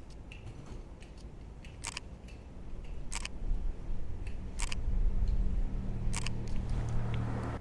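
Camera shutter firing four times, sharp single clicks about a second and a half apart, over a low rumble that swells from about three seconds in.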